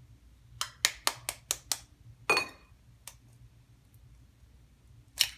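An egg tapped about six times in quick succession against the rim of a ceramic bowl to crack its shell, then a louder knock that makes the bowl ring briefly, a single click, and another sharp knock near the end.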